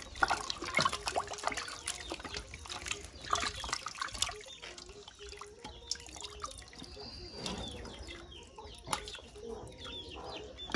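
Hands washing pieces of raw goat meat in a stainless steel pot of water: irregular splashing and dripping as the pieces are squeezed and lifted out of the water.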